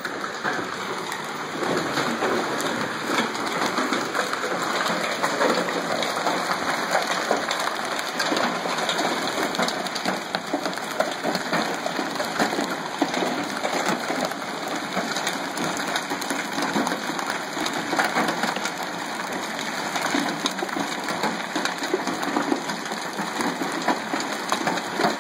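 Hailstones pelting down hard and without letup, a dense clatter of countless small impacts on the ground and a parked pickup truck.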